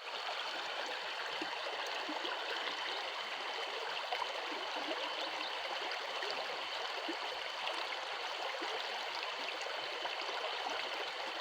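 Flowing water running steadily.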